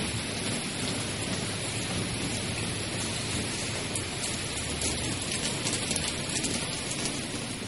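Steady rain, an even hiss, with a few light taps of drops about halfway through.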